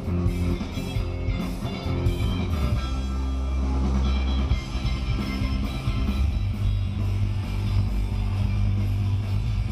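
Carranga-rock band playing live on guitars, bass and drums: a strummed rhythm for the first few seconds, then held chords over a steady bass.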